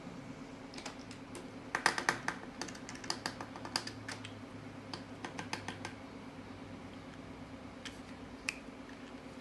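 A quick run of small, sharp clicks and light taps, densest two to four seconds in and then thinning to a few single clicks, over a steady low hum.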